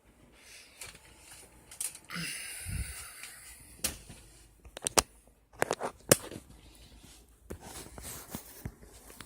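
Household items being handled while a drink is fetched: a rushing hiss lasting about a second about two seconds in, then a run of sharp clicks and knocks.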